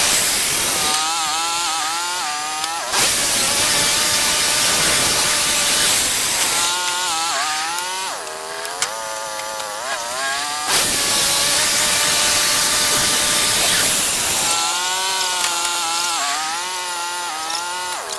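Portable bandsaw sawmill running and cutting through a log: loud, steady sawing noise that alternates every few seconds with a wavering, pitched whine.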